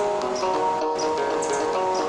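Soft instrumental music of held, layered notes that change every few tenths of a second, with short high chirps repeating over it about twice a second.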